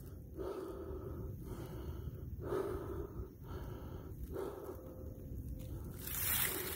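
A person breathing close to the microphone, a run of breaths about a second apart, then a louder rustle of dry leaf litter near the end as a hand reaches in to grab the snake.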